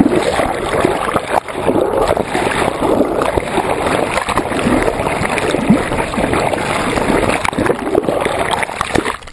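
Water rushing and splashing around a GoPro in its underwater housing, held over the side of a raft that is moving and bumping through the waves.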